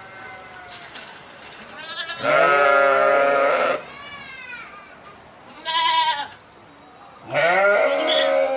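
Sheep bleating: a long loud bleat about two seconds in, a shorter one near six seconds and another loud one near the end, with fainter bleats between.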